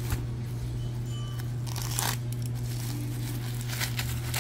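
Plastic bubble wrap crinkling in a few brief rustles as it is pulled off a cardboard tablet box, over a steady low hum.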